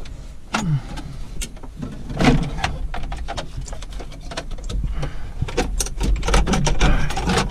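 Tractor gear-shift lever and linkage being worked by hand: a run of irregular metal clicks, clunks and rattles, over a low steady rumble.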